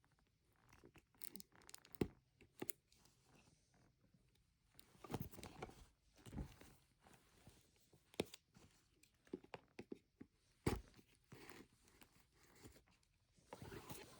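Faint handling of a smartphone's retail box and its packaging: scattered sharp taps and clicks, with short stretches of plastic and cardboard rustling and tearing.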